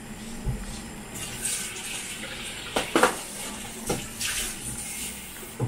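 Kitchen tap running in two short spells, filling a cup with water, with a few knocks of the cup or dishes between them. Tofu cubes sizzle faintly in the wok underneath.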